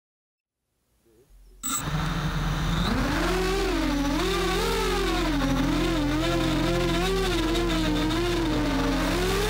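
Walkera F210 racing quadcopter's brushless motors whining in flight, the pitch wavering up and down continuously with throttle changes. It starts abruptly about one and a half seconds in, after silence.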